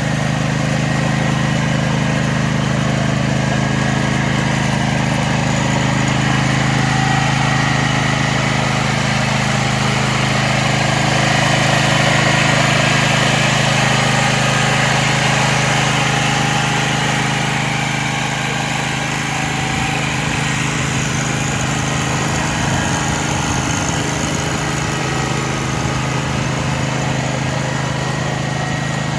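Kubota RCK54P-400Z zero-turn mower's engine running steadily at an even speed.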